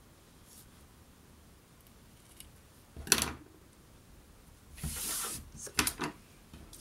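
Scissors and a satin ribbon handled on a wooden tabletop: a sharp clack about three seconds in, then a brief rustle and two quick clicks near the end.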